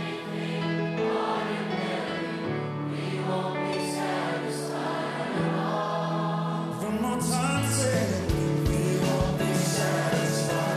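Live worship band playing a slow anthem while a large crowd sings along together. About seven seconds in the band swells louder, and steady drum hits come in.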